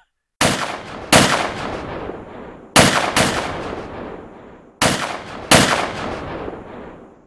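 Six gunshots in three pairs, each shot trailing off in a long echo.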